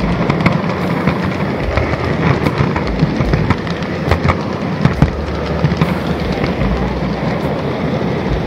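Close-up running noise of an N gauge model train carrying an onboard camera: a dense rattle of small wheels on the track, broken by irregular sharp clicks as they cross rail joints and turnouts.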